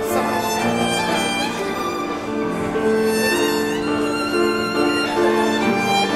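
Two violins playing a melody in long bowed notes that change every half second or so, with piano accompaniment from a Kawai transparent grand piano.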